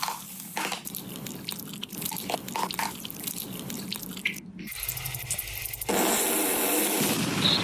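Wet clicking and chewing sounds, like candy being bitten and chewed, in a few abruptly cut segments. A louder steady hiss sets in near the end.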